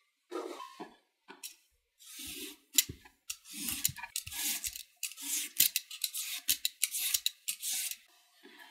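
Julienne peeler shredding a raw cucumber into thin strips: quick, repeated scraping strokes with sharp clicks of the blade against the wooden board.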